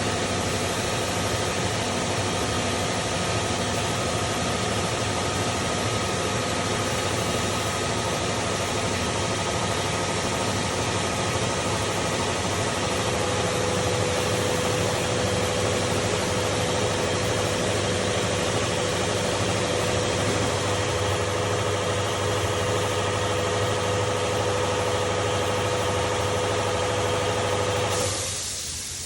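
CNC machine running a program: a steady mechanical hum with several held whining tones, a further tone joining about halfway through. Just before the end the hum and tones stop together, leaving a hiss.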